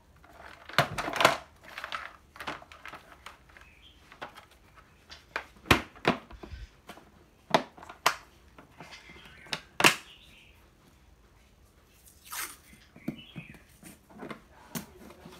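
Hard plastic clicks and knocks as a cordless drill, its battery and charger are set into a moulded plastic tool case and the lid is shut. Near the end comes a short scratchy rip of masking tape pulled off its roll, then rustling as it is pressed onto the case.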